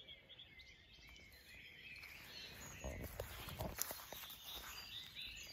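Faint rural ambience: small birds chirping now and then, with soft rustling steps through grass around the middle.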